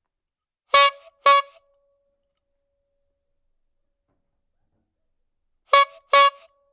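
Clown's squeeze-bulb horn honked twice in quick succession, then twice again about five seconds later; each honk is short and bright.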